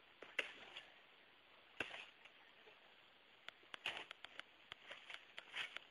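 Snow crunching faintly in short, irregular bursts, with a few sharp clicks mixed in; the bursts come closest together about four seconds in.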